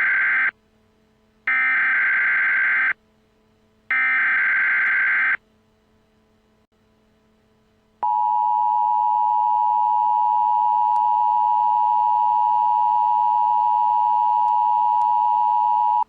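Emergency Alert System header: three short, screechy bursts of digital data tones about a second apart, signalling the start of an emergency alert. After a few seconds' pause, the steady attention tone of the alert begins about halfway through.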